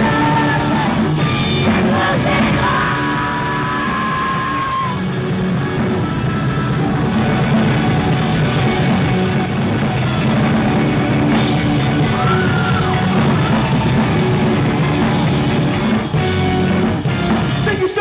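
Live rock band playing loud electric guitars, bass and drums, with sung and yelled vocals over the top. The music turns choppy near the end.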